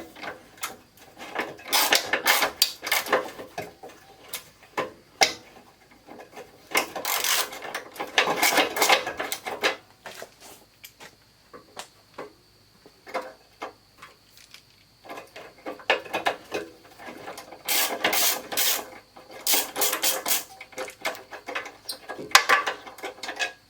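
Hand work on a car's front bumper support: repeated rasping, scraping bursts about a second long with scattered knocks and clicks as the part is worked at, quieter for a few seconds in the middle.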